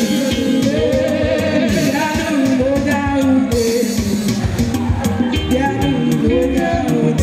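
Live band music: vocalists singing through microphones over band accompaniment with a steady beat.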